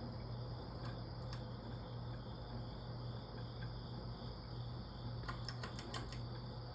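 Evergo Roma Emperor ceiling fan motor running on high speed with a steady low hum. A couple of sharp clicks come about a second in, and a quick run of clicks about five seconds in.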